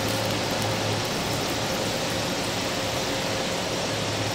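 Steady hiss with a low hum from a tabletop grill: meat sizzling on the grill with the ventilation running.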